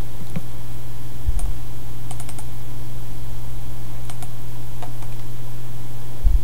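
Computer mouse clicks: a few single clicks and a quick run of three or four clicks about two seconds in. A steady low hum runs underneath, with a couple of dull low thumps.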